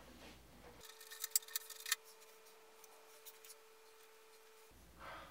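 Small clicks and scrapes of hard plastic parts of a G.I. Joe Defiant toy gantry being handled, a quick run of them about a second in, over a faint steady hum.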